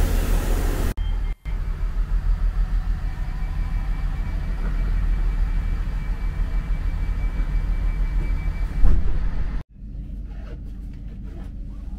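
Steady low rumble inside a train carriage, with a faint steady high whine over it. It opens with about a second of louder platform bustle and drops suddenly to a quieter hum near the end.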